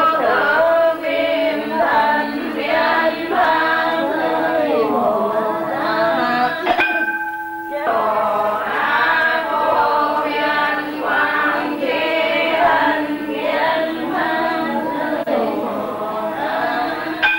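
Voices singing together in a chant-like melody. About seven seconds in the singing drops out for a moment and a single note is held before it resumes.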